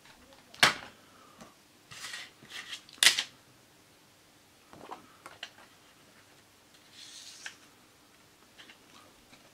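A paper CD booklet handled and slid into a clear plastic jewel case: two sharp clicks of the plastic, about half a second in and about three seconds in, with paper rustling and sliding as the booklet is pushed into place, and a few faint ticks in between.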